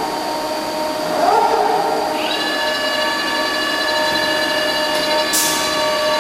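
Hankook CNC machining center running, a steady mechanical whine of several held tones. A short rush of noise comes about a second in, a higher set of whining tones joins about two seconds in with a brief upward sweep, and a short hiss comes near the end.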